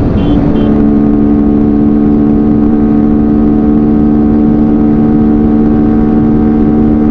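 Yamaha R15 V3's single-cylinder engine shifting up into sixth gear right at the start, then running at steady high revs near the bike's top speed of about 125 km/h.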